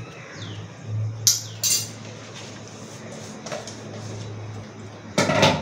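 Metal ladle clinking against a large metal cooking pot while grated coconut and roasted semolina are stirred together, with two sharp clinks about a second and a half in.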